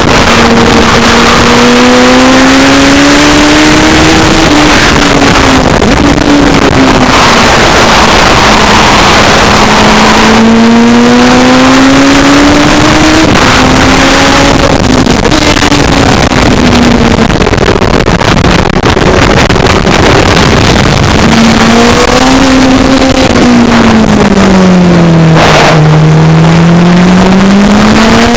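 Racing sidecar outfit's engine heard on board at speed, its note climbing and falling repeatedly as the outfit accelerates and slows through the corners, with a quick drop and rise again near the end. A steady rush of wind and road noise runs under it.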